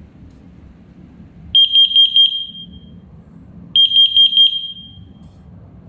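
JKD-621 carbon monoxide detector sounding its alarm: two groups of four high-pitched beeps, the groups about two seconds apart, each ending with a short fading ring.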